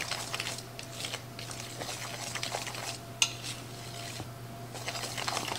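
Wire whisk stirring dry flour, baking powder and salt in a metal bowl, its tines scraping and clinking against the bowl, with one sharper clink about three seconds in.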